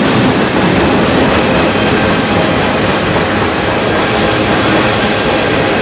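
Freight train's refrigerated boxcars rolling past close by: steady, loud noise of steel wheels running on the rails.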